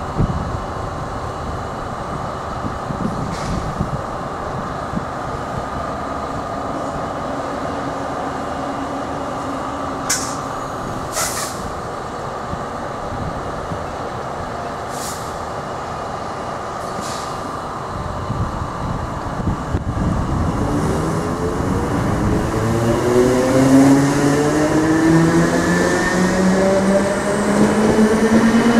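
Irish Rail 8300 class DART electric multiple unit standing at the platform with a steady electrical hum, with a few short hisses of air partway through. About twenty seconds in, its traction motors start to whine and the whine climbs steadily in pitch as the train pulls away.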